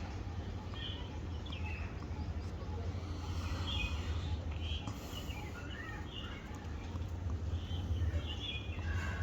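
Birds chirping in short scattered calls over a steady low hum.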